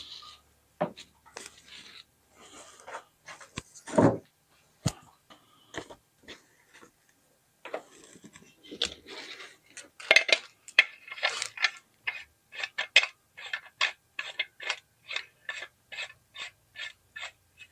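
Metal parts of a UFO LED high bay light clinking and scraping as they are handled, with a loud knock about four seconds in. Near the end comes a regular run of short scrapes, about two a second, as the metal hanging hook is screwed in.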